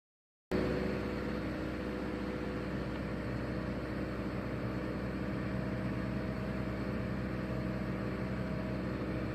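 Steady running of a heavy machine's engine, a constant drone with several held tones, cutting in abruptly about half a second in.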